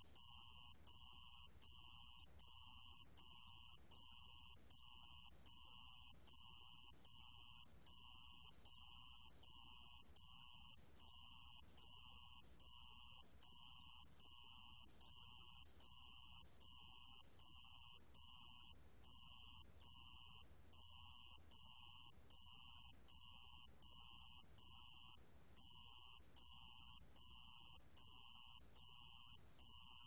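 A 모래방울벌레 ground cricket stridulating at 28 °C. It makes short, high-pitched chirps about twice a second, evenly spaced, with a skipped beat or two partway through.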